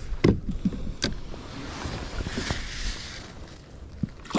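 Landing a sea bream at a fishing kayak: two sharp knocks against the plastic hull near the start, then a short splash of water about two seconds in, over low wind rumble on the microphone.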